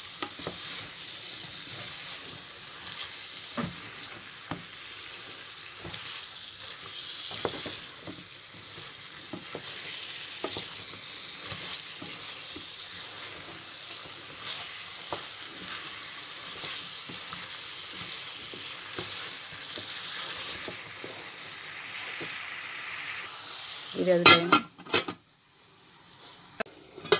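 Spiced paste and flat beans sizzling as they fry in a stainless steel saucepan, stirred with a wooden spatula that gives light scrapes and knocks against the pan. The masala is being fried down (kosha) before the fish goes in. Near the end comes a brief louder sound, and then the sizzling stops.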